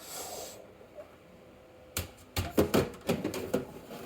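Plastic water tank of a De'Longhi La Specialista espresso machine being put back in: a brief sliding rush at the start, then from about halfway a quick run of hard plastic clicks and knocks as it is pushed into place.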